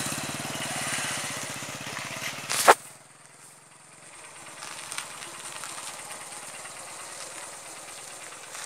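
A small engine idles with a rapid, even beat. About two and a half seconds in there is a single sharp knock, and after it the engine sound is much fainter.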